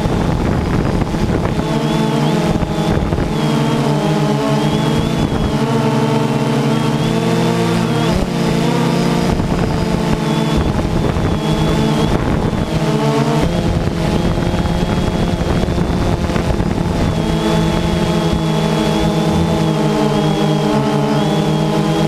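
DJI Phantom 2 quadcopter's motors and propellers whining steadily in flight, with several tones that wander in pitch and shift as the throttle changes, about eight and again about thirteen seconds in.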